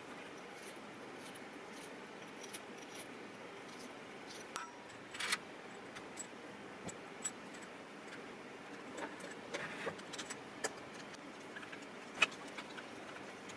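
Small metal parts clinking and scraping as a cast iron back plate, screws and a screwdriver are handled on a four-jaw lathe chuck: scattered light clicks, with sharper clinks about five and twelve seconds in, over a faint steady hiss.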